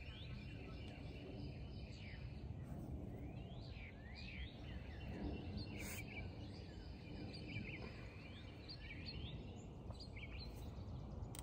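Faint outdoor ambience with songbirds chirping in the background: scattered short rising chirps throughout, and one faint click about six seconds in.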